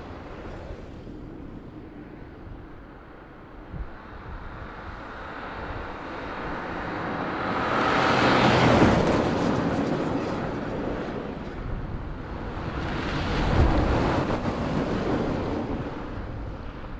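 Camouflaged Hyundai i20 test car driving past on a snow-covered road: a rushing engine-and-tyre noise swells as it passes about eight seconds in, then fades. It swells again around thirteen seconds in.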